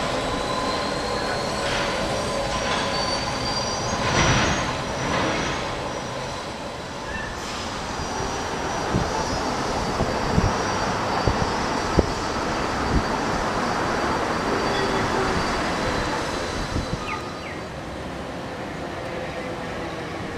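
Electric transit vehicles running past: a steady high whine and squeal over a rumbling hum, with a string of sharp clicks about halfway through.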